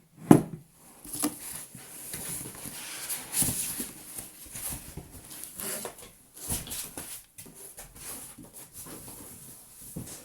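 Handling noises as 3D printer parts are taken out of their packaging: irregular rustling of packing material with clicks and knocks, the sharpest knock about a third of a second in.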